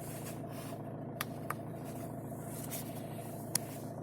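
1.9-litre diesel engine of a Skoda Octavia idling steadily after a jump start, with a few faint clicks.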